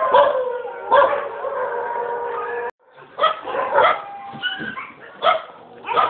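Dogs vocalising: a long held howl-like call, then after an abrupt cut about two and a half seconds in, a dog yipping and barking in several short, separate bursts.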